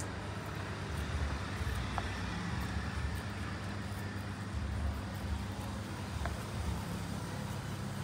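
Steady low background rumble with a faint even hiss, and two faint brief higher blips, about two seconds in and again near the end.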